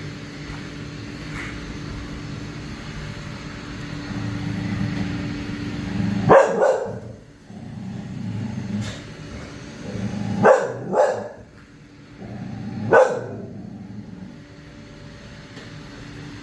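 A micro bully dog barking four times: once about six seconds in, twice close together around ten to eleven seconds, and once near thirteen seconds. He is reacting to a robot vacuum. A steady hum runs underneath.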